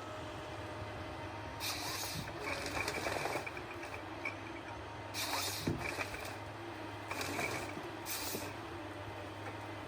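Forest harvester running: a steady low engine hum, broken by several short bursts of hissing.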